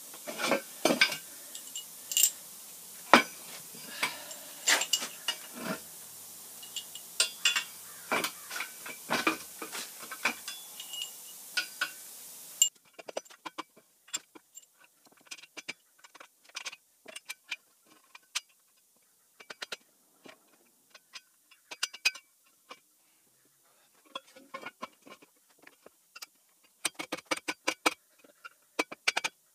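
Steel engine-hoist leg tubes, caster-wheel brackets and bolts being handled and fitted together: scattered sharp metallic clinks and knocks, with a quick run of clinks near the end.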